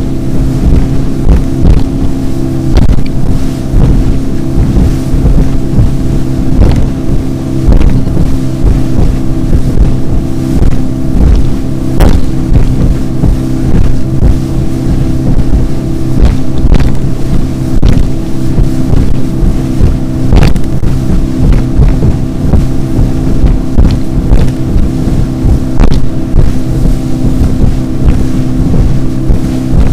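Motorboat running fast over choppy open sea: the engine holds a steady pitch while the hull slaps and knocks irregularly on the waves, with spray and wind rushing over the microphone.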